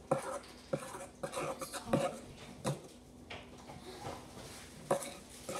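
Spatula knocking and scraping against a stainless steel mixing bowl as slime is stirred: a string of sharp knocks, about one every half second to second.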